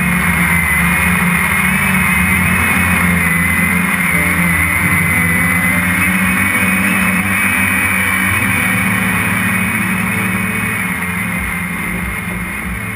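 Walkera QR X350 quadcopter's electric motors and propellers whining steadily in flight, heard close up through the camera mounted on the drone, with a dense airy hiss around the whine.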